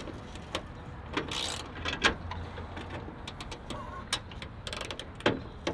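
Ratchet wrench working the rusted 10 mm bolts of a grille, making irregular clicks and light metallic knocks, with wind rumbling on the microphone.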